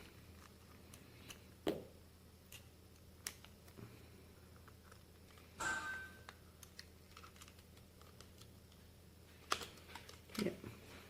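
Scattered faint clicks and taps of a screwdriver prying at an epilator's plastic housing, as the clip-together case is worked apart. The loudest click comes about five and a half seconds in, over a low steady hum.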